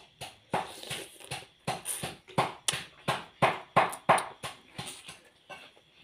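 A person chewing a mouthful of steamed crab with loud, wet mouth smacks, about three a second, growing fainter near the end.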